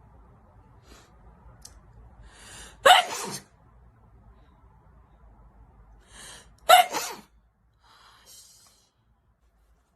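A woman sneezing twice, each sneeze led by a short catching inhale and ending in a loud, sudden burst: wet allergy sneezes. A softer breath follows about a second after the second sneeze.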